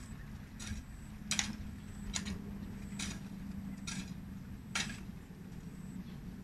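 A hand tool chopping into the soil, sharp strikes about one a second that stop about five seconds in, over a steady low hum.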